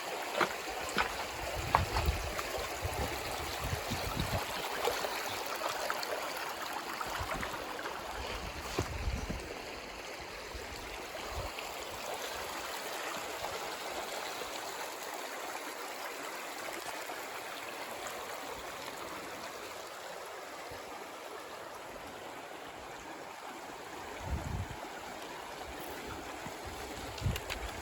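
Mill Creek's water running over rocks, a steady rush that eases a little after the first few seconds, with a few low thumps.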